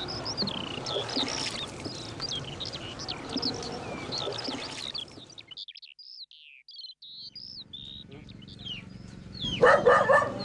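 Many small birds chirping with quick falling whistles over a low background hum; the hum cuts out about halfway through, leaving only the bird calls. Near the end a short, louder animal call breaks in.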